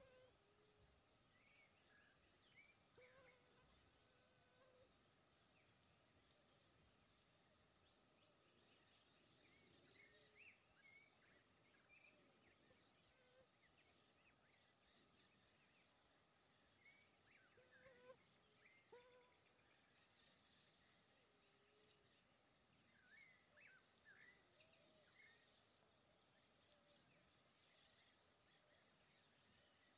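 Faint insect chorus: a steady high-pitched trill, a second buzzing insect that stops about halfway through, and a rapidly pulsing cricket-like chirp near the start and again through the second half. Short chirping calls come and go over it.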